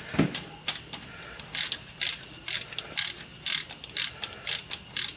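A 9/16 ratchet clicking in short back-and-forth strokes, about two bursts of clicks a second, as bolts are run down until they seat. The clicks are lighter for the first second or so, then come regularly.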